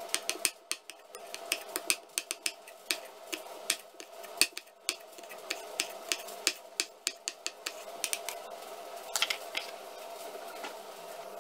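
Kitchen knife dicing onion and tomato on a chopping board: irregular sharp knocks of the blade on the board, a few a second, that stop near the end, over a faint steady hum.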